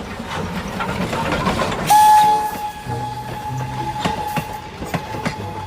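Train sound effect: a rattling, chugging clatter, then, about two seconds in, a loud start to a single long steady whistle held to the end, with scattered clicks.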